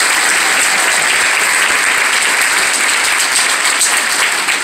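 Theatre audience applauding steadily, a dense even clapping that starts to break into separate claps near the end.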